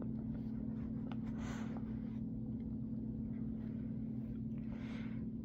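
Room tone with a steady low electrical-sounding hum, and two soft hissy swells, one about a second and a half in and one near the end.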